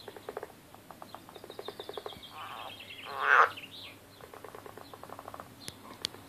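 European water frogs croaking in rapid rattling pulse trains, several overlapping calls. The loudest is a harsh, raspy burst about three seconds in.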